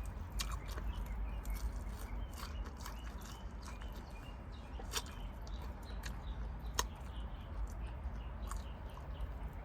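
Close-miked eating sounds: scattered wet mouth clicks and smacks while chewing, irregular and unhurried, over a low steady hum.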